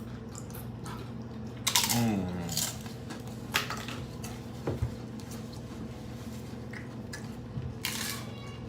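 Close-up eating of crisp fried corn tortilla, the crunchy taco shells and tortilla chips of a mukbang: several sharp crunching bites, the loudest about two seconds in, with chewing between them. A steady low hum runs underneath.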